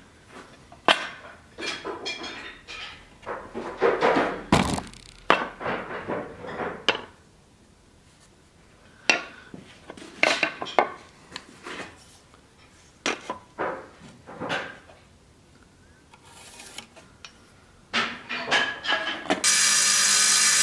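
Irregular knocks, taps and rubs with quiet gaps as a hardwood board and a dagger blade are handled and marked out on a bench. Near the end a table saw starts up and runs loud and steady as the board is fed toward its blade.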